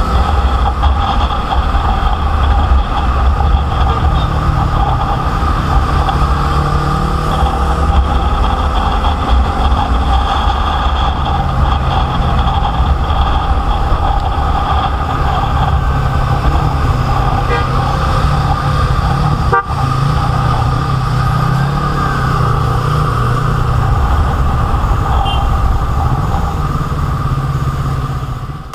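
A vehicle running at a steady pace: a constant drone with a few steady tones over a low rumble. It drops away suddenly near the end.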